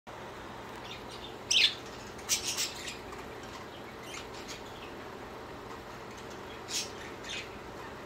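Budgerigars giving short, sharp chirps and squawks: a loud one about a second and a half in, a quick run of three just after two seconds, and two more near the end, over a steady background hiss.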